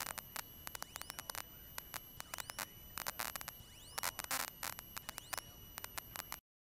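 Faint electrical static on the cockpit intercom audio feed: irregular crackles and clicks over a thin, steady high whine, with no engine sound coming through. It cuts off abruptly to silence near the end.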